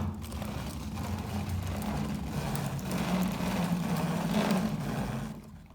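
Toy RC cars' small electric motors and gears whirring as they drive, the drone stepping up in pitch about two seconds in and dying away near the end.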